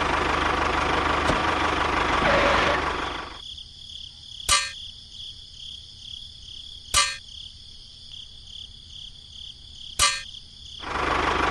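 A small motor running loudly, cutting off about three seconds in. A faint steady whine follows, broken by three sharp knocks a few seconds apart, and the motor starts running again near the end.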